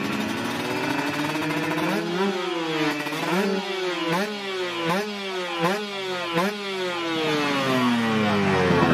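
Kawasaki Ninja drag bike engine revving on the start line: the revs climb, are then blipped up and down about six times in quick succession, and fall away in one long drop near the end.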